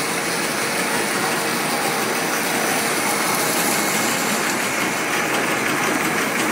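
Filled-snack extrusion production line running: a steady, even machinery noise with a faint constant hum, without any change or knock.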